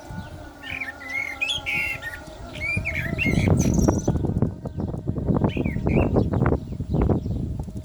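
Common blackbird singing in short warbling, fluty phrases over a faint held note of the call to prayer. About three seconds in, a louder rough rustling noise sets in and covers most of the song, with only a few bird notes heard through it.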